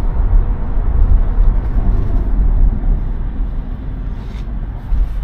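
Road and tyre noise inside the cabin of a Tesla Model 3 electric car driving at highway speed: a steady low rumble.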